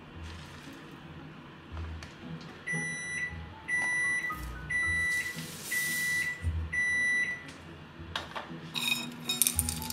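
A kitchen appliance's electronic beeper sounds five long, even, high beeps, one every three-quarters of a second. Near the end comes a short rattle of dry rolled oats tipped into a glass bowl.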